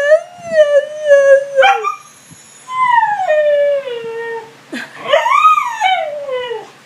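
Siberian husky howling: long drawn howls that slide down in pitch, the last one rising and then falling.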